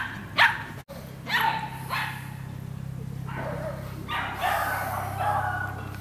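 Dog barking in short, separate barks through the first half, then in a quicker run over the last two seconds.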